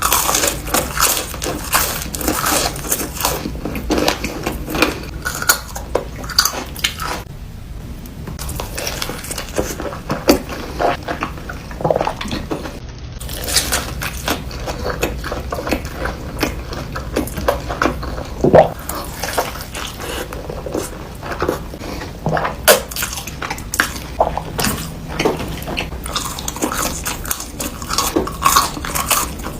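Close-miked eating: dense, irregular crunching bites and chewing with wet mouth sounds, mixed with clinks of utensils against dishes.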